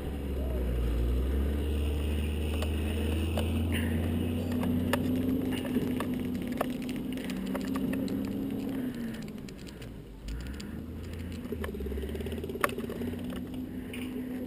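Truck engine running with a low rumble and a steady hum that rises slightly, then fades away about nine seconds in. Scattered sharp clicks are heard throughout.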